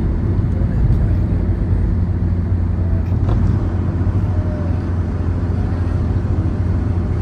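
A car driving: a steady low rumble of engine and road noise that holds even throughout.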